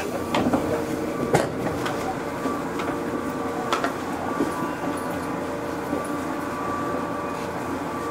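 Running sound of a 413 series electric train: a steady hum over rail noise, with a few sharp clicks, the loudest a little over a second in.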